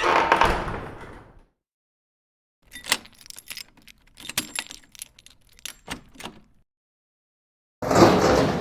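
Door sound effects: a door bangs shut at the start, its sound dying away over about a second. A run of sharp metallic clicks and rattles follows, like door lock or latch hardware being worked. Near the end, another door bangs shut.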